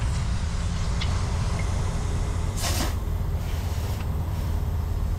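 A short burst of air hissing from a tire inflator chuck on an air hose fed from a semi truck's air lines, about two and a half seconds in, with fainter puffs after it. Under it, a steady low rumble of the truck idling.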